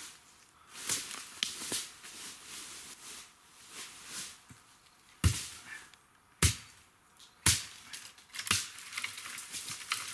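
Machete chopping a thin woody stem: four sharp strikes about a second apart, with footsteps and rustling in dry fallen leaves before and between them.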